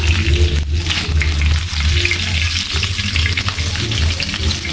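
Whole fish frying in a pan of hot oil, sizzling and crackling steadily as pieces are lifted out with tongs, over a steady low rumble.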